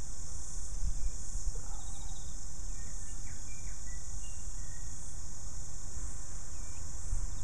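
A steady, high-pitched insect chorus, over a low rumble, with a few faint short chirps in the middle.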